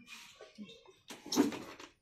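Handling noise of an aluminium pressure cooker lid and tools on a workbench: faint rustling, then a short burst of metallic clatter and scraping about a second in.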